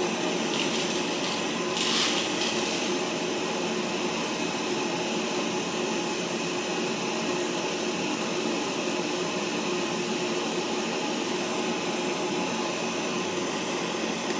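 Pet grooming dryer blowing a steady stream of air through its hose, with a brief sharper hiss about two seconds in.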